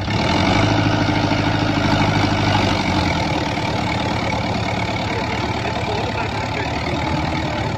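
New Holland Dabang 85 tractor's diesel engine running steadily under load as it pulls a laser land-leveller blade through soil, a little louder for the first three seconds.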